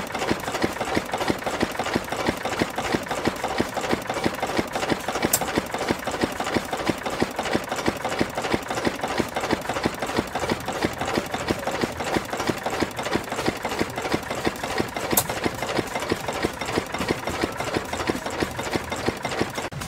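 Ruston & Hornsby 1XHR single-cylinder diesel stationary engine running steadily with a rapid, even beat, its flywheel turning and driving a flat belt.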